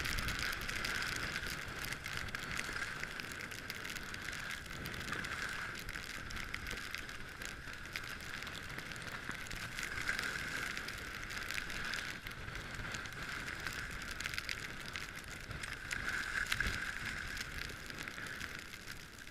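Skis sliding and carving on snow: a steady hiss and scrape with fine crackling that swells and fades every few seconds, with some wind rumble on the microphone.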